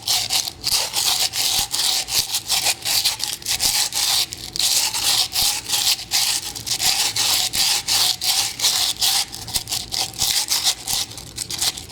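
Sandpaper rubbing on a dry, unfired clay pinch pot in quick back-and-forth strokes, a few a second, a dry scratchy hiss as it smooths the pot's surface and lip.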